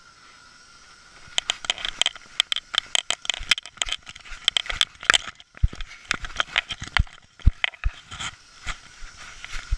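Rapid, irregular clicking, rattling and knocking from a camera strapped to a dog's neck being jostled as the dog moves about, with a few dull thumps. It starts about a second in.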